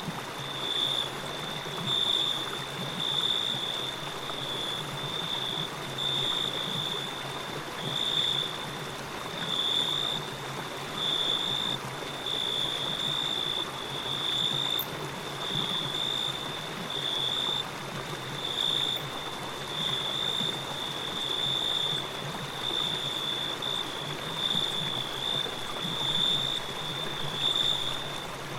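Water flowing steadily in a stream, with a high-pitched trill held on one note that swells and fades about once a second.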